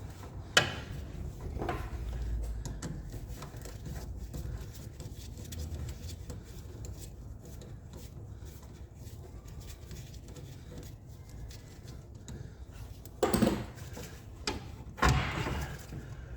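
Hand work on a car engine bay: a sharp metallic click about half a second in, a few quieter handling noises, then two louder clunks near the end as tools or parts are moved.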